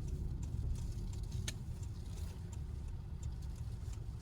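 Inside the cabin of a Honda StepWGN minivan driven slowly over rutted snow and ice: a steady low rumble of road and engine noise, with a single light click about a second and a half in. The drive is a test to bring out a front suspension knock on an unloaded wheel.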